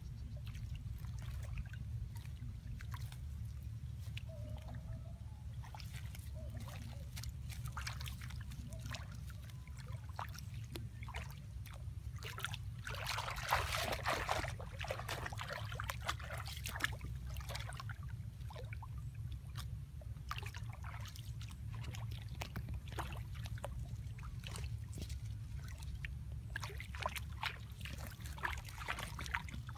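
Shallow muddy water sloshing and splashing as someone wades and handles a mesh fish trap in it, loudest about halfway through while the water is churned by hand. A steady low rumble runs underneath.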